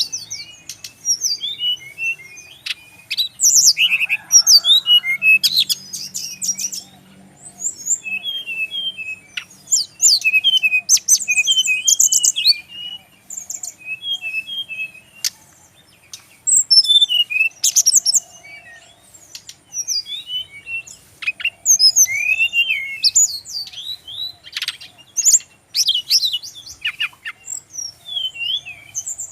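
Brown-chested jungle flycatcher (sikatan rimba dada coklat) singing: bursts of fast, varied high chirps and trills, broken by short pauses between phrases.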